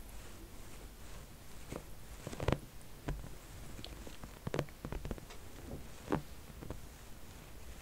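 Hands and fingernails rubbing, sliding and lightly tapping on a smooth dark leather-like surface: soft scratchy rubs with scattered small clicks, three of them sharper, roughly two seconds apart.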